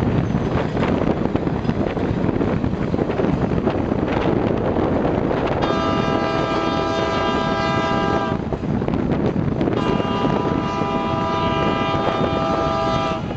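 Passenger train rolling along with a steady rumble of wheels and wind, heard from beside an open coach window. The train's horn sounds two long blasts, a chord of several notes, the first about five and a half seconds in and the second about ten seconds in.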